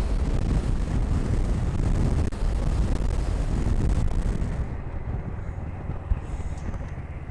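Motorcycle riding at speed, with engine drone and wind rushing past the helmet microphone. The rush of wind thins out about halfway through and the sound grows quieter as the bike slows.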